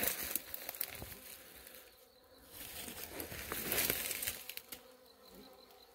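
Wild honey bees buzzing around a swarm-trap box, a swarm that has just moved in. A few light clicks and rustles sound over the buzzing.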